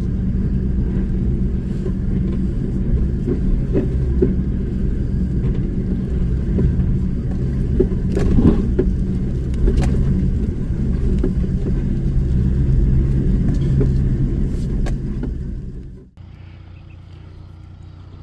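A four-wheel drive's engine running steadily at low revs as it crawls a rough dirt track, heard from on board, with a few knocks from the ride. About sixteen seconds in it cuts off suddenly to a much quieter, faint outdoor background.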